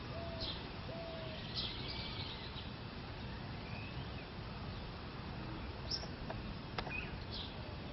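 Mallard ducklings peeping: scattered short, high, falling peeps, with two lower falling notes in the first second and a half, over steady background noise.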